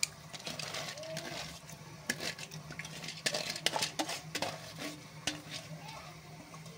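Soaked long-grain rice tipped from a steel bowl into a pot of boiling water, with scattered clinks and scrapes of the bowl and hand against metal over a faint low hum.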